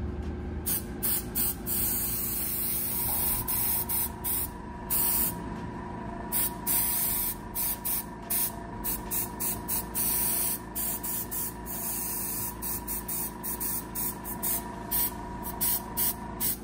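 Airbrush spraying hair pigment onto the side of a haircut in many short hissing bursts, some held a little longer, to fill in thin, patchy areas. A steady hum runs underneath.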